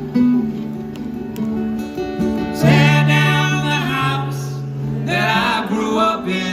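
Live band music: strummed acoustic guitar over steady low held notes, with a wordless vocal line coming in about two and a half seconds in and again about five seconds in.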